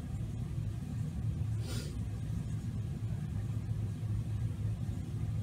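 Steady low room hum, with one brief soft hiss nearly two seconds in.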